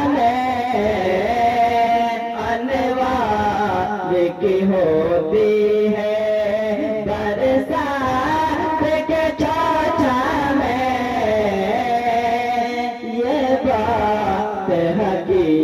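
Two men singing a manqabat (Urdu devotional verse) together into microphones, drawing each word out in long, wavering held notes over a steady low tone.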